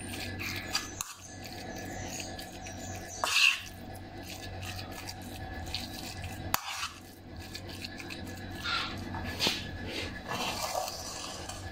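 Metal spoon stirring a moist vegetable and tuna filling in a non-stick wok, scraping and tapping against the pan several times over a soft steady hiss.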